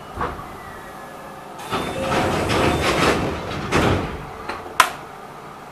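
Sliding passenger doors of an Enshu Railway 2000-series electric train closing at a station stop: a rush of air and door movement lasting a couple of seconds, ending in one sharp knock as they shut.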